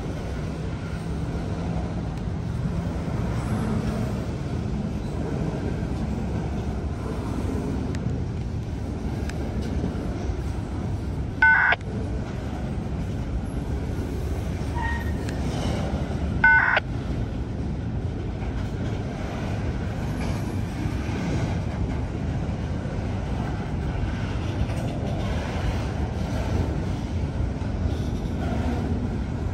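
Freight train rolling past below, a steady rumble of wheels on the rails. Twice near the middle, about five seconds apart, there is a short, loud, high beep that stands out over the rumble.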